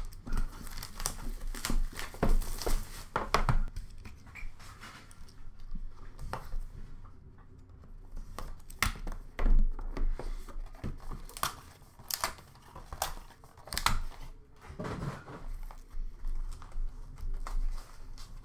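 Opening a sealed box of hockey cards: wrapping crinkling and tearing, with many sharp clicks and taps as the box is handled and hard plastic card cases are lifted out. The crinkling and tearing are densest in the first few seconds.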